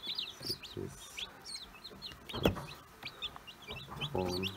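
Newly hatched chicks peeping continuously: many short, high, falling peeps overlapping one another. A single sharp knock comes about halfway through.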